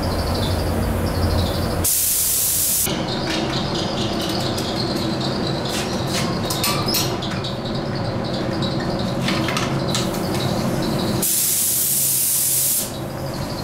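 Paint spray gun laying on clear lacquer: a steady hiss of compressed air, with two sharper, brighter bursts of spray, about two seconds in and near the end.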